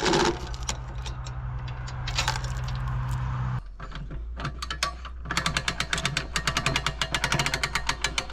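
Skidding arch's hand winch cranked up, its ratchet clicking rapidly and evenly through the second half, after a steady low mechanical hum that cuts off about three and a half seconds in.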